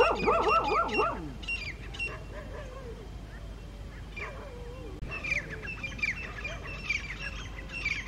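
Grey francolin giving its loud territorial call, a rapid run of rising-and-falling notes that breaks off after about a second. Fainter, lower calls from farther off and the short chirps of small birds follow, busier from about five seconds in.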